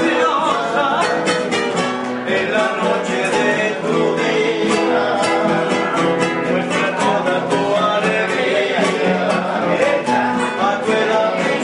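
A trio of acoustic guitars played live, with quick picked melody notes over strummed chords.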